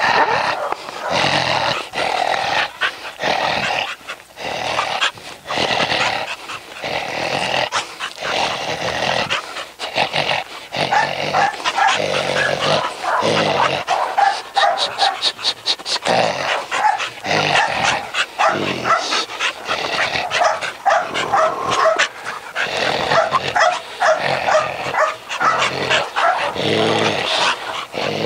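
Young brindle dog barking and growling over and over as it goes after and bites a swung burlap bite rag. It is working in prey drive, the play of the hunt, not defence.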